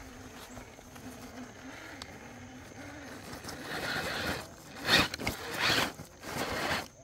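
Electric RC rock crawler's motor and geared drivetrain whirring as it crawls over rock, a low wavering whine at first, then louder short bursts of whirring from about four seconds in as the throttle is blipped over a ledge.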